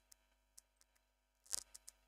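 Faint, sharp clicks of a computer keyboard and mouse being worked, with one louder click about one and a half seconds in and a couple of lighter ones after it.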